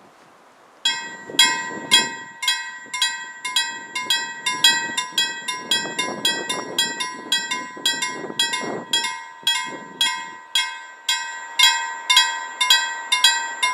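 Railway level crossing warning bell starting up about a second in and ringing steadily at about two to three strikes a second, with the strikes coming faster near the end. It warns that a train is approaching and the barriers are lowering. Wind is buffeting the microphone.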